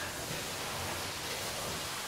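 Steady, even hiss of a fish-processing line running, with no distinct knocks or voices.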